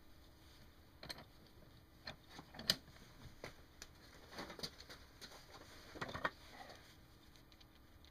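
Handling noise at a workbench: scattered light clicks, taps and brief rustles of small wired parts and clothing being moved by hand, the sharpest click about two and a half seconds in and a short cluster about six seconds in.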